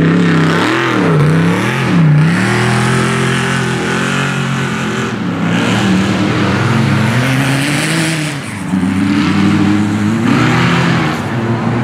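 Off-road race car engine revving hard, its pitch dropping and climbing again and again with throttle lifts and gear changes. Loudness dips briefly about eight and a half seconds in.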